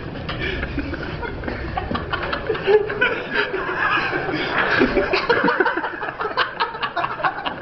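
People snickering and giggling under their breath, mixed with many short clicks and knocks.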